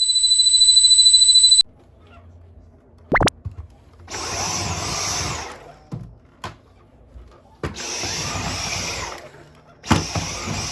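Dyson V10 cordless cyclone vacuum motor running in three short bursts that start and stop with quiet gaps between them, on a vacuum that has lost its suction. Before that, a steady high electronic tone sounds for about a second and a half and cuts off abruptly.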